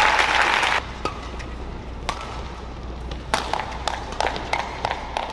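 Arena crowd applauding, cut off just under a second in. Then a badminton rally: sharp taps of racket on shuttlecock and players' quick footwork on the court mat, coming several times a second from about three seconds in.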